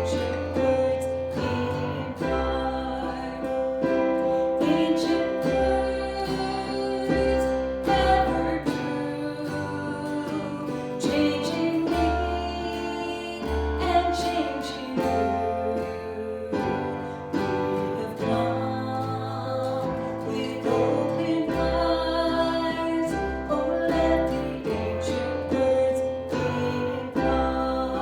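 Music: a song with guitar, bass and singing.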